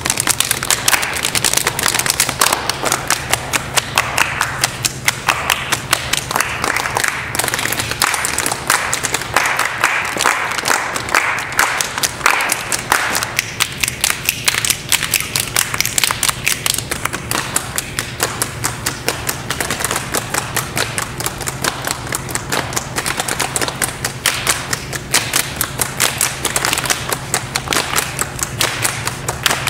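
A group of people snapping fingers, rubbing, clapping and patting their hands together: a dense, ragged patter of many overlapping taps that never settles into one beat.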